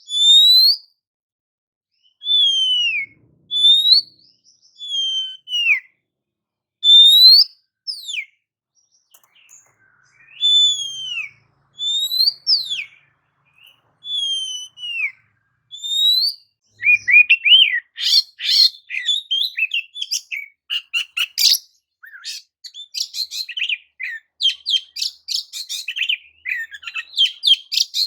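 Oriental magpie-robin (kacer) singing: separate clear whistled notes, each a quick rising or falling slur, about one a second. About two-thirds of the way in it breaks into a fast, continuous, varied chattering song.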